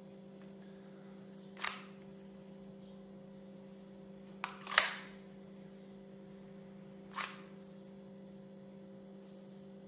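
Sharp plastic clicks from an IMI Defense pistol holster as the gun is drawn and reholstered and the index-finger retention catch releases and snaps back in, four in all with the loudest about five seconds in. A steady low hum runs underneath.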